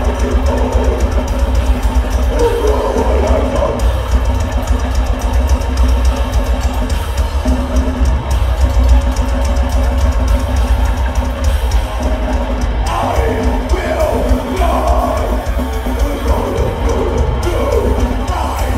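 Metal band playing live on electric guitars, bass guitar and drum kit, loud and dense without a break.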